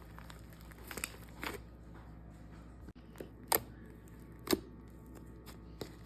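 Slime being handled and squeezed: about six short, sharp pops and clicks at uneven intervals, the loudest two near the middle.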